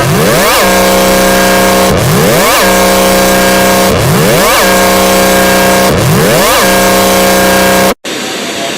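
Electronic emergency alert alarm tone: a quick rising whoop followed by a steady low buzzing tone, the pair repeating about every two seconds, four times, then cutting off suddenly near the end.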